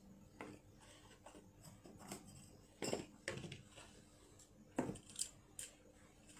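Gold-plated jewellery being handled and set down: scattered light clicks and clinks, about nine in all, the loudest a little before the middle and near the end.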